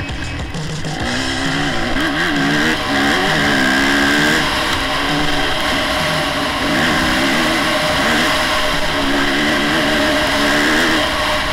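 Dirt bike engine under way, its pitch rising and falling again and again as the throttle is opened and rolled off.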